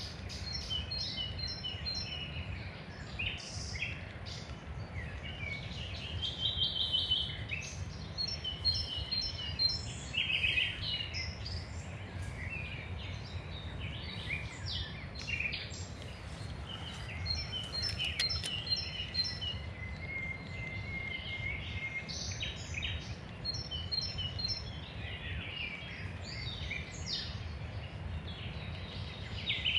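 Several songbirds singing together, a busy mix of short chirps, repeated notes and trills, one holding a longer steady whistle about two thirds of the way through. A steady low rumble runs underneath.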